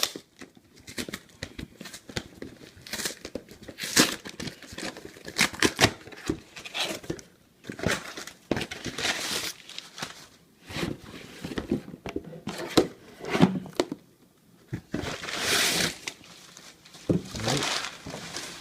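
Packaging being torn open and crumpled by hand: irregular crinkling and tearing with sharp crackles, and a longer rustle shortly before the end.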